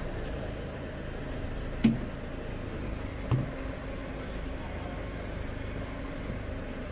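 Steady low hum of a running machine, with two short knocks, about two seconds in and again a second and a half later, as the plastic oil jug is handled.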